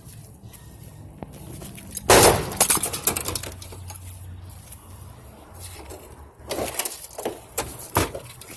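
A dishwasher being smashed apart: one loud crash with breaking about two seconds in, followed by scattered knocks and clatter, and a few more sharp impacts near the end.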